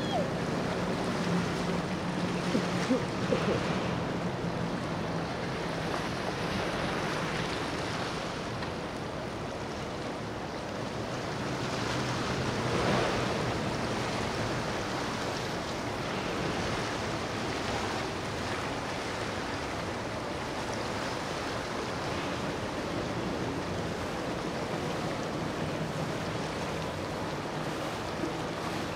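Motorboats passing on a river: a steady wash of wake and hull spray with a low engine hum, strongest in the first few seconds as an Evinrude outboard on a center-console boat goes by. Wind buffets the microphone throughout, and a few short sharp sounds come about three seconds in.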